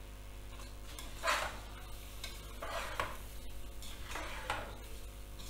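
A spoon stirring rice and soaked lentils into masala in a metal pressure cooker, scraping through the mixture in three slow strokes.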